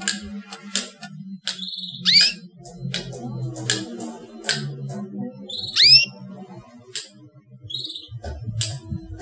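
Young canary calling: two loud chirps that sweep quickly upward in pitch, about two and six seconds in, with short high notes between and scattered sharp clicks.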